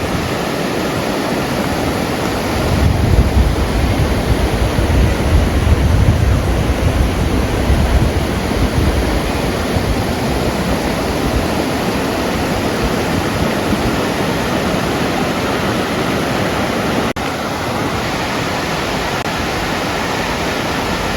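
Steady, loud rushing noise with no clear pitch or rhythm. Heavier low rumbling comes and goes about three to eight seconds in, and the sound dips briefly near the end.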